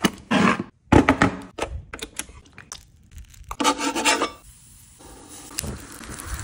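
Handling noises as a power plug is pushed into an electric griddle, its cord rubbing on fabric, with a few sharp knocks. About three and a half seconds in, a metal spoon scrapes a scoop of food onto the nonstick griddle plate, and a faint sizzle starts under it near the end.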